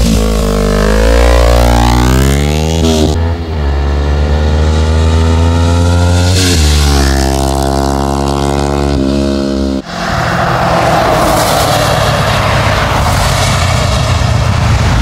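A Kawasaki Ninja 250R's parallel-twin engine through a Yoshimura racing exhaust, accelerating hard through the gears. Its pitch climbs three times, dropping at each upshift about 3 and 6.5 seconds in. It cuts off abruptly near 10 seconds to a steady rushing noise of riding at speed.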